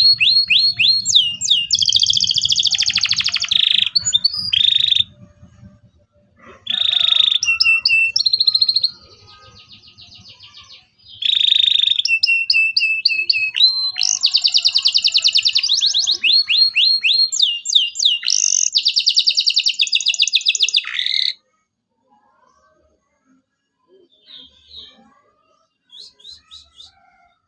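Domestic canary singing: fast rolling trills and whistled notes in long, loud phrases with short breaks, stopping about three-quarters of the way through, leaving only a few faint chirps near the end.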